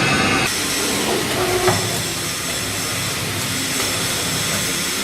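Steady loud hissing from repair work. A whine heard with it stops about half a second in, and there is a single click partway through.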